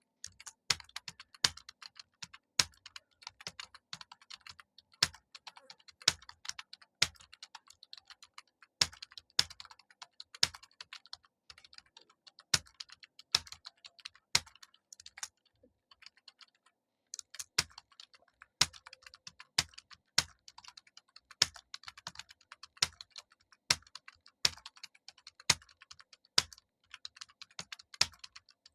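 Computer keyboard being typed on at a steady, fast pace, the rapid key clicks broken by louder strokes every second or so. About halfway through the typing stops briefly, then resumes.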